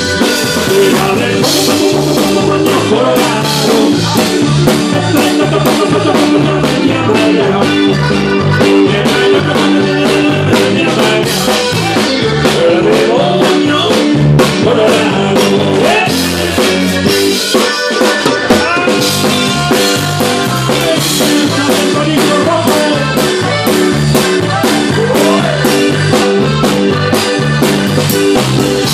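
Live band playing a loud, steady cumbia, led by accordion over drum kit and bass, with no singing.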